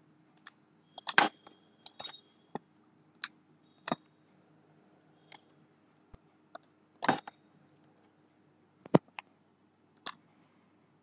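Computer keyboard keys and mouse buttons clicking irregularly as numbers are typed in and a button is clicked: single sharp clicks and a few quick clusters.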